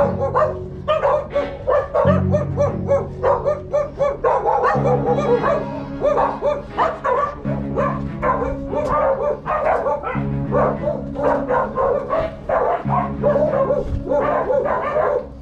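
A dog barking over and over in quick short barks, over music with a steady bass line.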